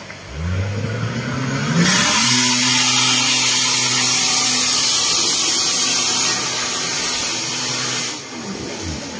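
Off-road 4x4's engine revving hard as it climbs a steep dirt slope out of a riverbed. The revs rise in the first couple of seconds, then hold high and steady under a loud hiss for about six seconds, and drop and rise again near the end.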